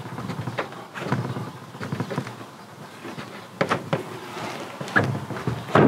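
Irregular knocks and clicks of a fridge door and its hinge being handled and fitted back on while the hinges are moved to the other side.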